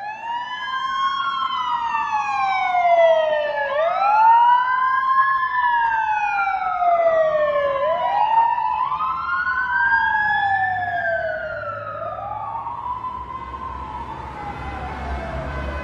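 A wailing siren: each cycle rises quickly in pitch, then falls slowly, repeating about every four seconds. It fades near the end as a low rumble grows underneath.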